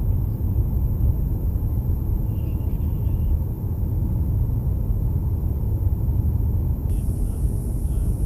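Steady low rumble of engine and airflow noise inside a KC-135 Stratotanker's boom operator station.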